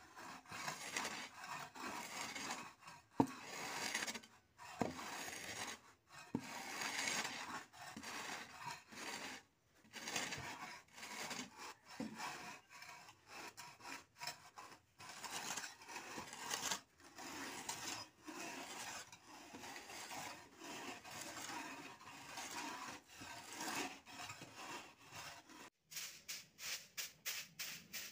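A long-handled tool scraping and pushing loose earth across an earthen floor in repeated rough strokes, with a couple of sharp knocks about three and five seconds in. In the last two seconds the strokes come quicker and evenly spaced.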